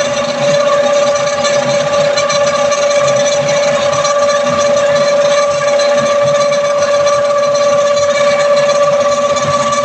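Belt-driven plastic recycling gulla machine running steadily while waste plastic sacks are fed into its hopper. It gives a constant high whine over a rough, uneven lower noise, and a higher part of the whine grows stronger about four seconds in.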